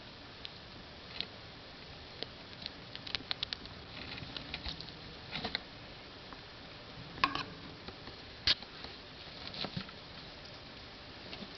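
Pet rats sneezing: irregular short, sharp little sneezes, the two loudest about seven and eight and a half seconds in. The rats are sick, and the constant sneezing is the sign of their illness.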